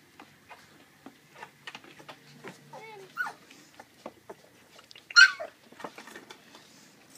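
Saint Bernard puppies eating from a shared dish of soft puppy food, with many small clicks and smacks of eating. One puppy whines briefly about three seconds in and gives a loud, high yelp that drops in pitch just after five seconds.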